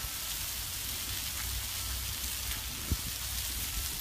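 Chicken pieces, zucchini and yellow squash sizzling on a hot Blackstone flat-top griddle: a steady high hiss, with a single short thump about three seconds in.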